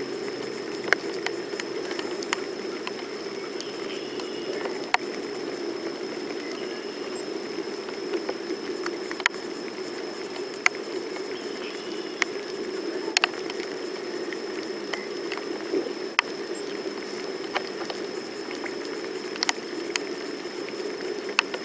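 Steady rain falling on the river and the small open boat, a constant hiss broken by irregular sharp ticks of drops.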